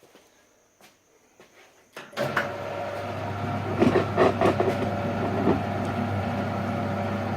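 AL960B metal lathe switched on about two seconds in, then running steadily with a geared hum as the lead screw turns; a few sharp knocks and rattles come a second or two after it starts.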